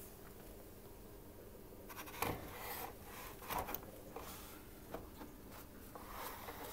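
A paper towel roll being handled and fitted into a plastic electronic towel dispenser: paper rubbing and rustling against the plastic housing, with light knocks and clicks, starting about two seconds in.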